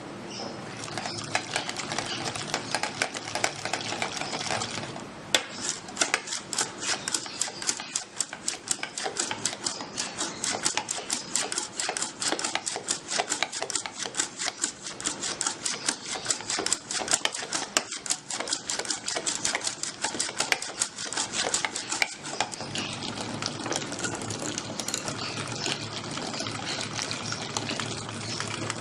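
Yogurt being whisked by hand, the whisk clicking against the side of the container in a fast, even rhythm of several strokes a second from about five seconds in, easing into softer steady swishing near the end. The yogurt is being beaten smooth for lassi.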